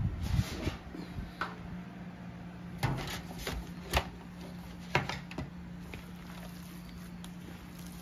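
Gloved hands squishing and kneading raw ground-meat meatloaf mixture in a plastic bowl, with a few sharp clicks and knocks between about three and five and a half seconds in, over a steady low hum.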